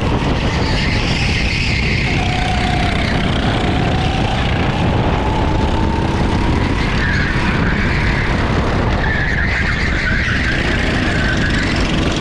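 Rental go-kart engine running hard, heard from on board the kart, its pitch climbing steadily from about two seconds in as the kart accelerates.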